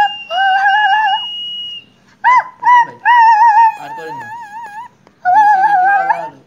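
Caged common myna giving about five drawn-out whistled phrases, some held steady and some warbling up and down, with short gaps between them.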